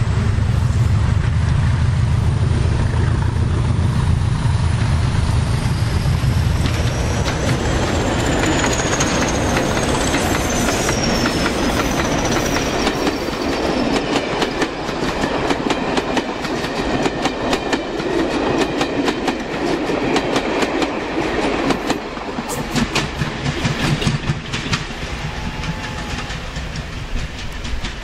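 Class 20 diesel locomotives hauling a passenger train past: the engines run loudly with a high turbocharger whistle that drops in pitch as they go by, about ten seconds in. The coaches then click rhythmically over the rail joints as the train draws away.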